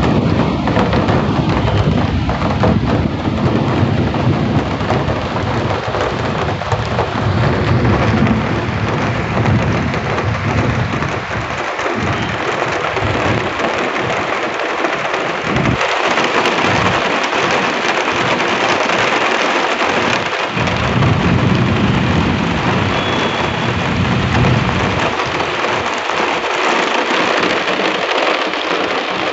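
Heavy rain pouring steadily, with low rumbles of thunder through the first ten seconds or so and again a little after twenty seconds in.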